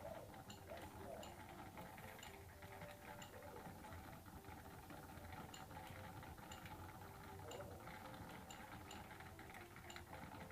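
Faint, near-silent turntable turning, with a low steady hum and soft irregular ticks.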